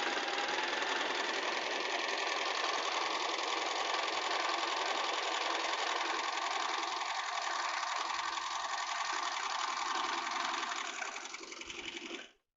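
Electric household sewing machine running steadily as it stitches a test seam on a newly selected stitch, then slowing and stopping near the end.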